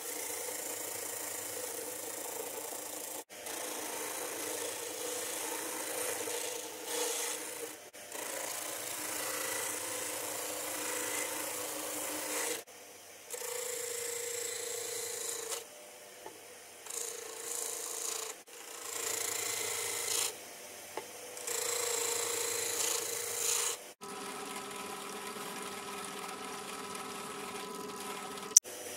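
Wooden knife-handle scales being sanded on a disc sander: a steady hiss and rasp of abrasive on wood over the machine's hum, stopping and starting several times. About four seconds before the end it changes to a drill press spinning a sanding drum, a steadier hum with several tones.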